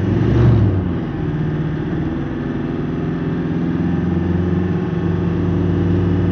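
2009 Mazda BT-50's 3.0-litre four-cylinder turbo-diesel engine held steadily at about 3,000 rpm with the vehicle standing still, heard from the cab, with a brief surge in revs about half a second in.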